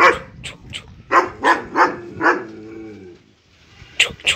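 German Shepherd barking repeatedly, a quick run of loud barks followed by a short lull and two more sharp barks near the end.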